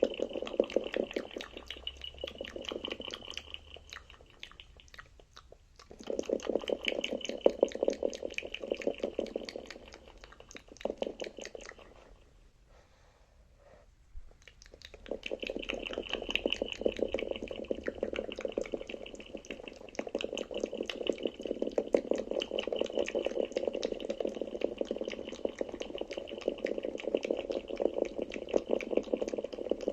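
Very fast wet mouth sounds, clicks and smacks of the lips and tongue made right at a sensitive ASMR microphone, in a dense stream of many clicks a second. The stream thins out about four seconds in and stops for a couple of seconds about twelve seconds in before starting again.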